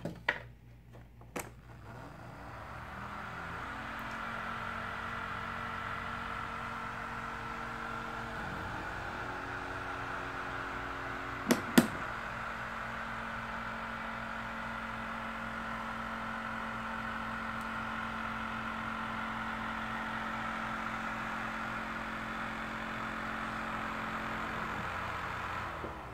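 Whir of a small spinning motor and rotor as the model wind turbine spins up over a couple of seconds, runs steadily and then winds down near the end. Two sharp clicks about halfway through.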